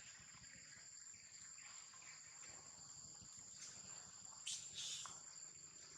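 Faint, steady, high-pitched drone of insects, with two brief noisy sounds in quick succession about four and a half seconds in.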